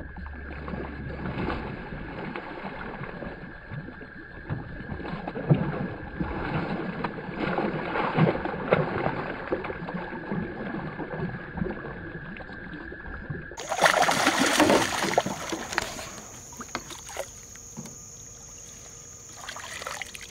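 A hooked bass thrashing and splashing at the water's surface in irregular bursts. About two-thirds through, a louder rush of splashing as it is scooped into a landing net, then water splashing and dripping off the net.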